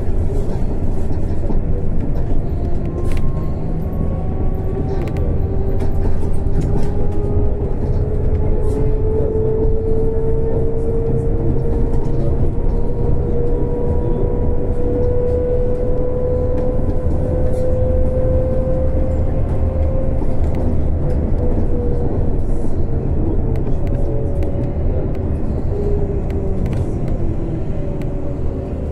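Trolleybus moving, heard from inside the passenger cabin: steady low road rumble under the whine of the electric traction drive, which rises slowly in pitch as the trolleybus gathers speed and falls about twenty seconds in as it slows. Light rattles now and then.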